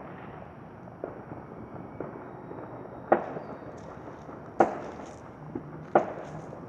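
Scattered distant bangs of New Year's celebration fireworks and gunfire, each with an echoing tail. A couple of faint pops come early, then three loud bangs about a second and a half apart.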